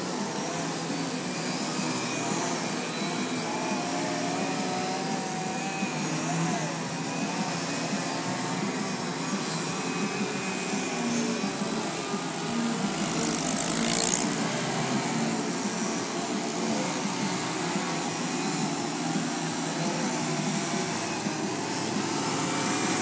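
Many radio-controlled 3D aerobatic planes hovering at once, their motors and propellers making a steady layered drone whose several pitches waver up and down as each plane's throttle changes. About 14 seconds in there is one brief loud rustling burst.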